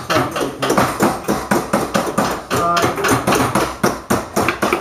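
Several hammers striking sheet metal over steel stakes at once, as bracelets are formed by anticlastic raising. The strikes come several a second, overlapping and irregular.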